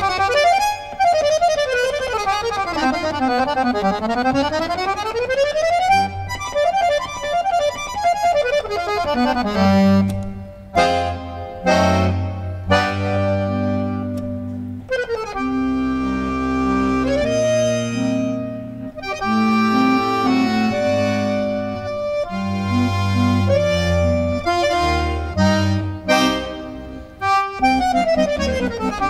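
Solo piano accordion: fast runs sweeping down and back up the treble keyboard at the start, then sustained chords over bass notes, with another falling run near the end.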